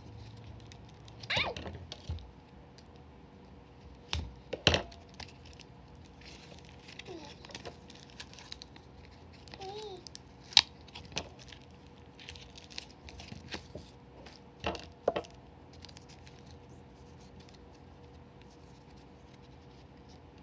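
A cardboard mailer being pulled open by hand and plastic card sleeves handled: scattered rustling and tearing, with a few sharper taps and knocks against the desk.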